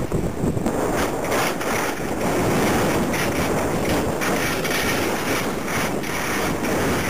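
Wind buffeting the camera's microphone while skiing over snow: a steady rushing with irregular gusts.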